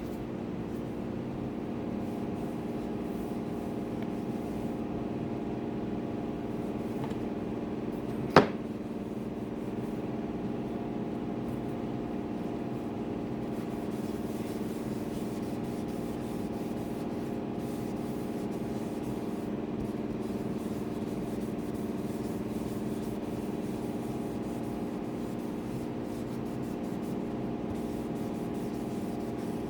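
Steady hum of several tones under faint rubbing as dye is wiped and sanded onto a wooden guitar body by hand, with one sharp click about eight seconds in.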